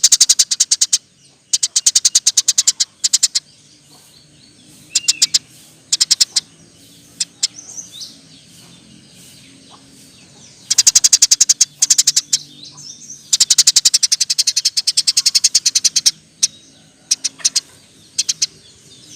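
Eurasian tree sparrow chirping in rapid, excited runs of high, evenly repeated chirps, each run lasting one to three seconds, with a few single chirps in the pauses between.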